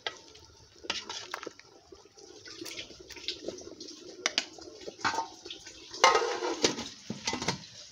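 Wooden spoon stirring thick soup in an aluminium pot with a few sharp knocks, the soup bubbling underneath. About six seconds in, the aluminium lid clatters and rings as it is set back onto the pot.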